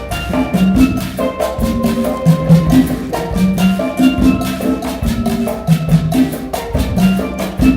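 An Afro-Caribbean percussion ensemble playing a steady groove: hand drums sound pitched low tones under a dense run of sharp strokes, with a few held higher notes above.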